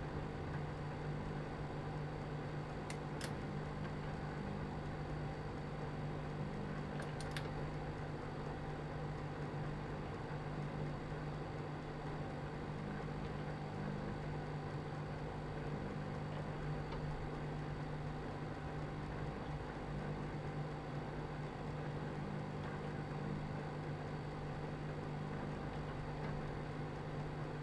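Microwave oven running its heating cycle: a steady low hum, with two faint ticks about three and seven seconds in.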